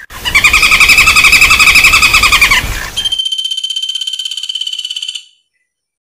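Flameback woodpecker calls: a loud, rapid rattling call lasting about two and a half seconds, then after a brief break a higher, quieter fast trill that stops about five seconds in.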